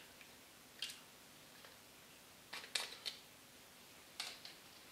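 Faint, short crackles and clicks as fresh yeast is crumbled by hand into the steel Thermomix mixing bowl: one about a second in, a small cluster near the middle, and one more near the end.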